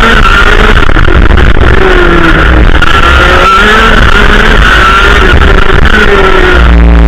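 Racing kart engine heard from on board, running loud and close, its pitch rising and falling as the driver works the throttle through corners, with wind noise on the microphone. Near the end the pitch drops as the driver lifts off.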